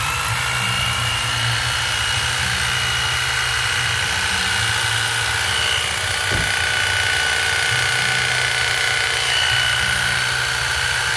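Corded Makita electric hedge trimmer (110 V, 320 W, 35 cm blade) switched on and running: its motor spins up with a brief rising whine, then runs steadily with a high whine over a low hum. A short knock sounds about six seconds in.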